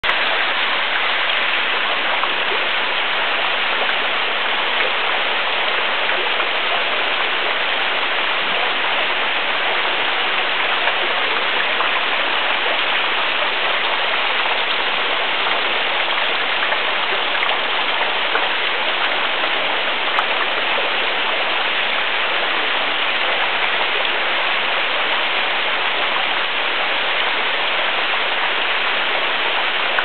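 Tall, thin waterfall streaming down a rock cliff: a steady rush of falling water.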